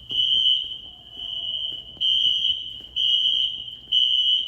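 Wheelock NS fire alarm horns sounding in alarm: a shrill, piercing horn tone blasting on and off about once a second, five blasts, one of them fainter.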